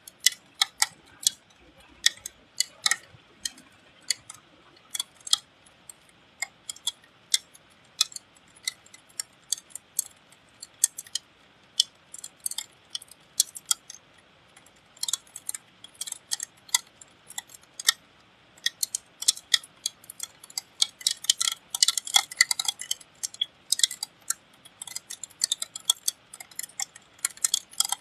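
Raindrops hitting the metal casing of a window air conditioner: sharp, irregular ticks and taps, sparse at first, then coming thick and fast in the second half.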